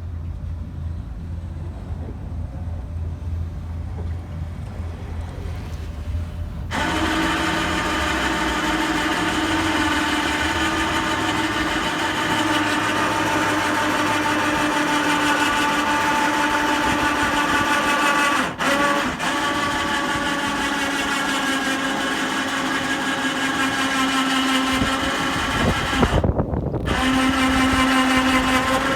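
Ferry's engine running. A low steady drone gives way about seven seconds in to a louder mechanical whine with several steady tones, which briefly drops out twice and shifts in pitch near the end.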